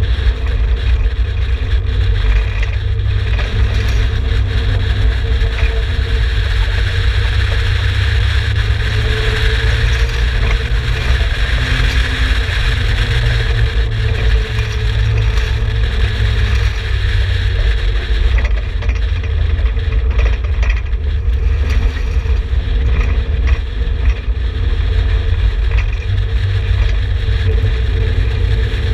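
Exocet's turbocharged Mazda MX-5 BP 1.8-litre four-cylinder engine running on the move at fairly even revs, with only small rises and falls in pitch. A heavy low rumble sits underneath it.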